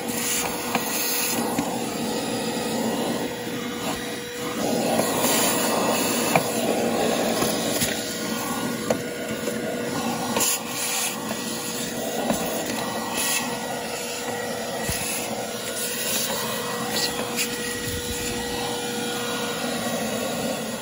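Vacuum cleaner running steadily with a constant whine as its nozzle sucks dust and debris out of a car's glovebox cavity, with occasional scrapes and knocks from the nozzle.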